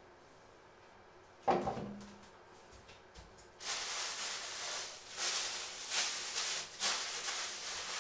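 A single knock about one and a half seconds in, then a thin plastic bag crinkling loudly in several bursts as it is grabbed and scrunched up by hand.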